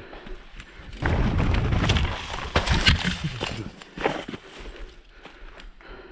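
Mountain bike ridden over rough trail: a rumbling noise with scattered knocks and rattles, loudest from about a second in until about three and a half seconds in.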